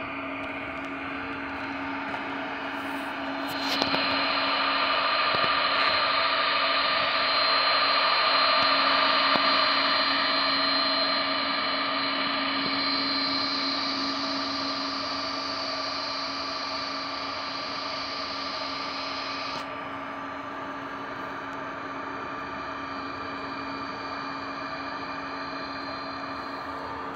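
Jet engines of a twin-engine widebody airliner running on the runway: a steady rush with high whining tones. It swells about four seconds in, is loudest a few seconds later, then eases, and the highest whine drops out about two-thirds of the way through.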